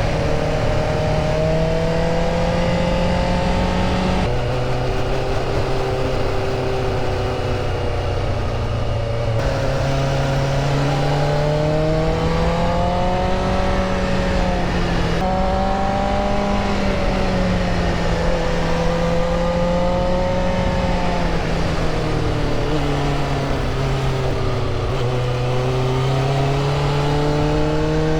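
1988 Honda CBR600F1 Hurricane's inline-four engine running under way, its pitch rising and falling as the bike speeds up and slows, with a few sudden steps in pitch.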